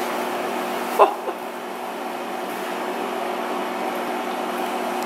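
Steady mechanical hum of a room appliance, holding several even tones. About a second in, a brief wavering squeak rises above it.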